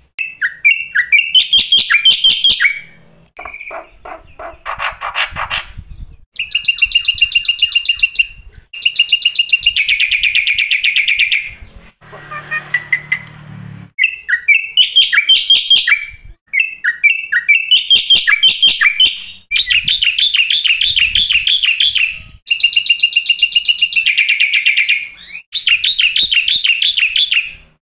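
Black-winged myna (jalak putih) singing a varied song laced with mimicked phrases: bursts of fast repeated whistled notes and trills lasting a few seconds each, separated by short gaps, with a harsh rasping note about twelve seconds in.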